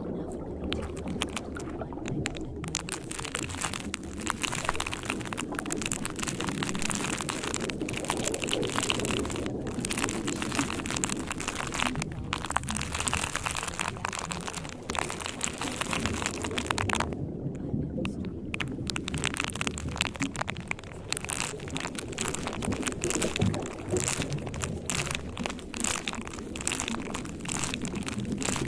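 Rain-like noise: a steady hiss crowded with small patters and ticks, over a low, dull murmur, with the hiss briefly thinning about two thirds of the way through.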